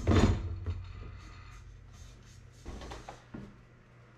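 Hard plastic case sliding and scraping along aluminium roof-rack slats, fading within the first half second, then a few faint scuffs and knocks as it is shifted into place.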